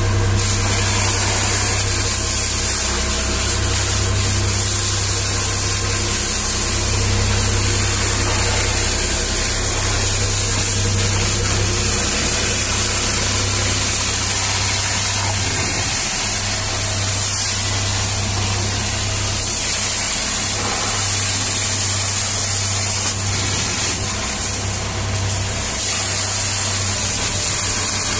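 High-pressure water jet hissing and splashing against the tyres and underbody of a mining haul truck, over a steady low drone of the pump machinery that drives it.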